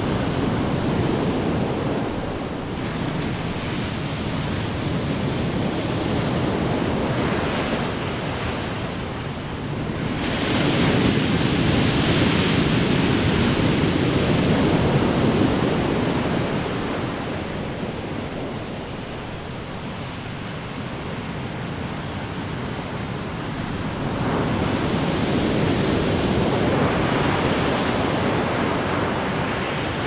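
Ocean surf: a continuous wash of breaking waves, with a big wave crashing about ten seconds in and another about twenty-four seconds in, each swelling and then fading back into the wash.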